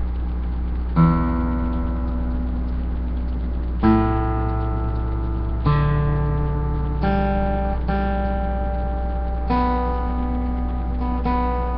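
Acoustic guitar strummed slowly, one chord at a time, about seven times, each chord left to ring until the next: the strings are being checked for tuning.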